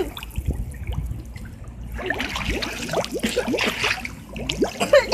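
Pool water heard through a phone's microphone held underwater: a muffled low rumble, then from about two seconds in a busy run of bubbling and gurgling.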